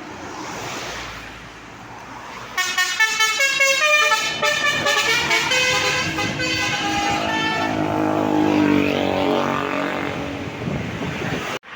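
A bus's Basuri multi-tone musical horn playing a 'telolet' tune: after a few seconds of traffic noise it starts suddenly with a quick run of short stepped notes, goes on into longer held notes, and cuts off abruptly near the end.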